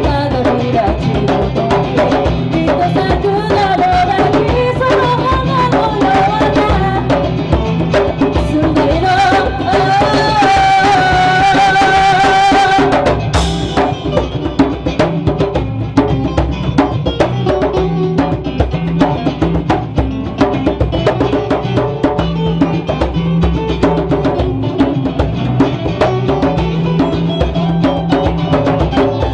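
Live acoustic band music: a woman singing over plucked strings and hand percussion. The singing drops out about halfway, leaving an instrumental stretch with the percussion to the fore.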